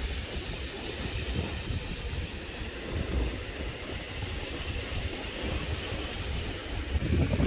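Strong sea wind buffeting the microphone in a gusty rumble, with ocean surf breaking behind it; the gusts grow louder near the end.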